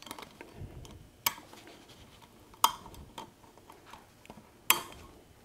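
Light, sharp metal clicks as a wire synchronizer key spring is worked into the three keys of a T5 five-speed's synchronizer hub on the mainshaft. There are three clear clicks, about a second or more apart, with fainter ticks and handling between them.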